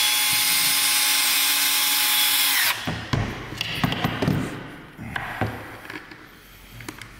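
Cordless drill-driver running steadily with a high motor whine as it drives a Phillips screw into the plastic end cap of an e-bike battery. The motor stops about two and a half seconds in, its whine falling as it spins down. Then come scattered light clicks and knocks as the tool is set down and the battery case is handled.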